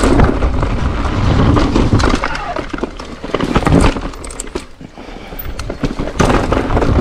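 Electric mountain bike riding over a loose, rocky trail: tyres crunching on gravel and dirt while the bike rattles, with many sharp knocks and clicks from stones and bumps.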